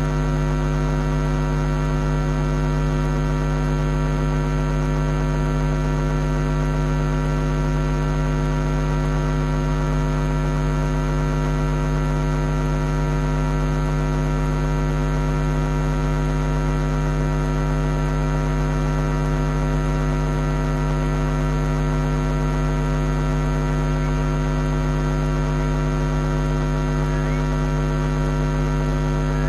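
Loud, steady electrical hum: a low buzz with a ladder of overtones that never changes, interference on the livecam's audio feed rather than any sound from the animals.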